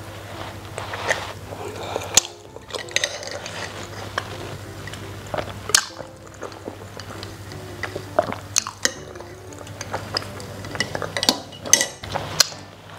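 Close-miked eating sounds: biting into and chewing a rice ball, with many sharp wet mouth clicks and smacks, and a sip through a metal straw around the middle.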